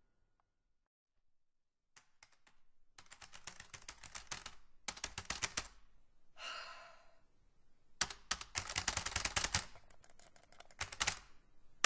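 Experimental music made of sharp clicks: after about two seconds of silence come a few single clicks, then dense runs of rapid, typewriter-like ticking, broken about halfway by a short breathy hiss.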